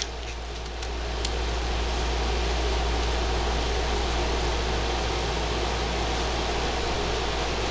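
Steady hiss over a low hum, like a fan or recording noise, with a few faint clicks in the first second or so.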